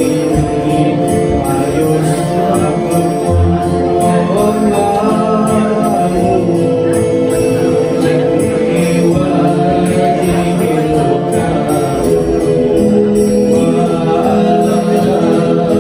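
Shalawat, an Islamic devotional song: steady sustained instrumental tones over a regular percussion beat, running without a break.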